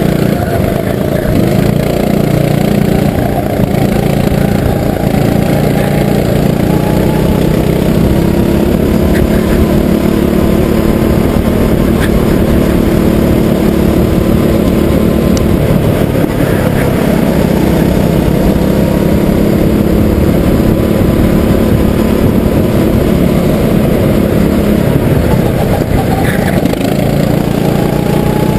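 Rental racing kart's engine running hard, heard close up from a camera mounted on the kart, its pitch rising and falling with the throttle through the corners.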